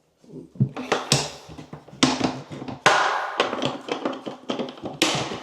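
Hand tools and gear clattering and knocking as they are handled and set down while being packed away. It is an irregular run of sharp knocks and rattles with a few louder hits.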